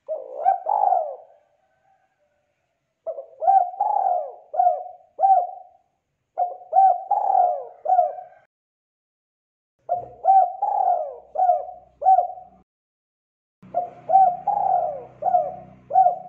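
Spotted dove (tekukur) cooing in repeated phrases of four or five short coos each. A phrase ends just at the start, then four full phrases follow, each about a second apart.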